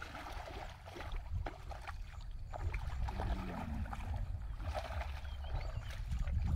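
Bare feet wading through shallow muddy water, sloshing and splashing in irregular steps, getting louder near the end.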